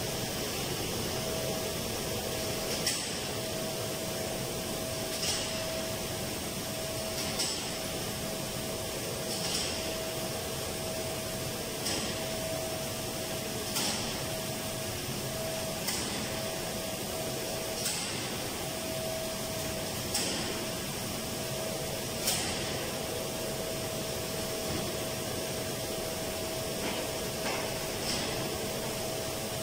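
Steady hum of running ventilation machinery with a steady mid-pitched tone, and a short high hiss that repeats about every two seconds.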